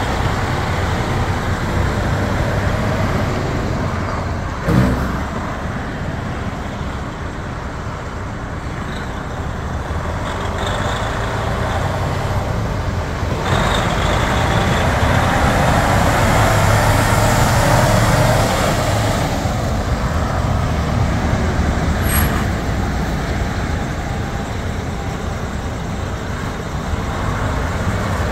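Diesel engine of a sleeper-cab semi tractor running as the truck drives up and past, growing louder about halfway through as it goes by. There is one sharp knock about five seconds in.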